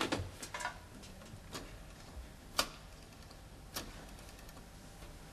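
A wall telephone's handset lifted off its hook with a few quick clicks, then single sharp clicks about a second apart as a number is dialled.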